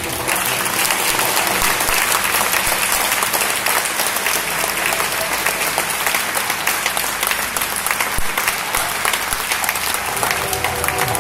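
Audience applauding, a dense steady clapping that starts abruptly. Music becomes audible faintly underneath near the end.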